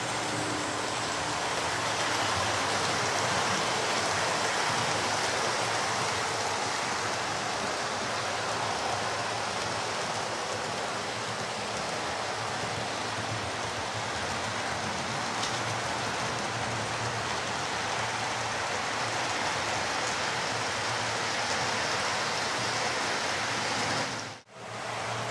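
Model Class 43 HST train running on the layout's track: a steady whirring rush of wheels on rail and motor, with a faint low hum under it, cutting out briefly near the end.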